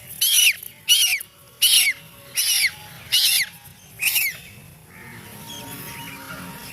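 A duckling giving high-pitched distress calls: six loud peeps about three-quarters of a second apart, each dropping in pitch at the end, stopping about four seconds in.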